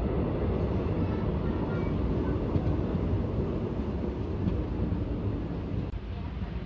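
Passenger train coach running slowly under a 20 km/h speed restriction, heard at the open doorway: a steady rumble of wheels on rail that eases a little about six seconds in.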